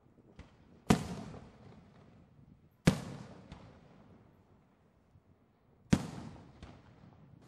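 Three fireworks bangs, roughly two and three seconds apart, each followed by a long echoing tail that fades away, with a few fainter pops in between.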